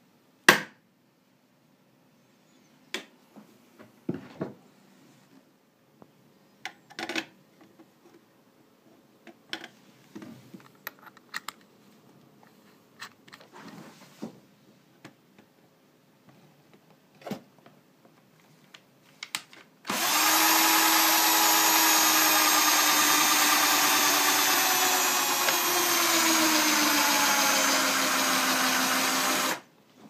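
Cordless drill with a step drill bit boring into a steel amplifier chassis: about two-thirds of the way through it starts and runs steadily for about ten seconds, its pitch sagging a little near the end as the bit bites, then stops suddenly. Before it, scattered knocks and clicks.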